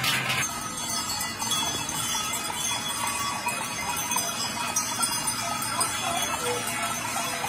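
Big cow bells clanging for the first half second, then a continuous, irregular tinkling of many small bells on a herd of goats being led along a wet road.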